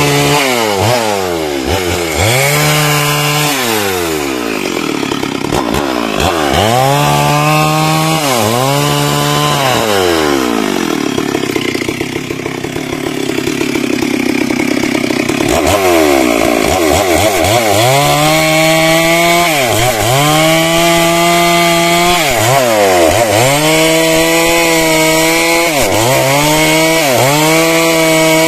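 Stihl MS 382 two-stroke chainsaw cutting into a teak trunk, its engine pitch dropping under load and climbing back again and again, about every one to two seconds. Around the middle the pitch sinks lower and holds for several seconds before the rising and falling resumes.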